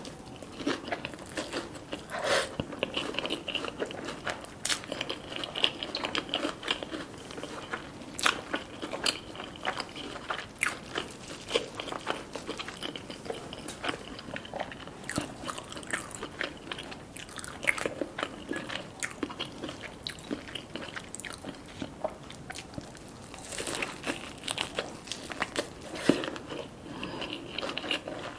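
A person biting and chewing crunchy food close to the microphone, with many quick, irregular crunches and wet chewing.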